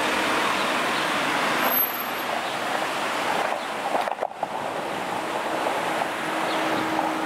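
Steady city street traffic noise: cars passing on the road as a continuous hiss and rumble.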